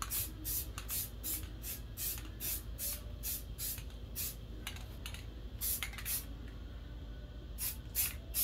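Rust-Oleum satin black aerosol spray paint being sprayed in short quick bursts, about two or three hisses a second, with a brief lull near the end before a few more.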